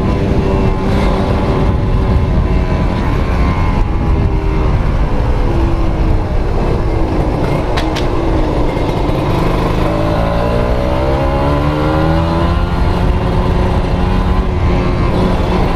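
Kawasaki Ninja RR's 150 cc single-cylinder two-stroke engine, fitted with a Mikuni VM28 carburettor, running: its pitch eases slowly down through the first half, then climbs steadily as the engine speeds up again.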